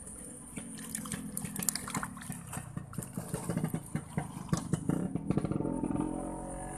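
A small engine, like a motorcycle's, running close by. It grows louder and then begins to fade near the end, with many sharp clicks and knocks of close handling on top.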